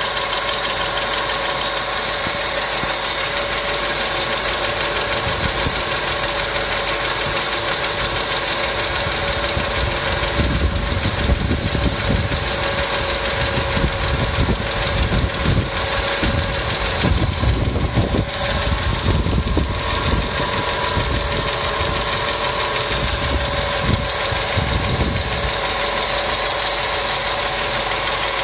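Mercedes M111 supercharged four-cylinder engine running with a fast, even ticking, which the mechanic takes for noisy hydraulic lash adjusters. A low rumble comes and goes in the middle stretch.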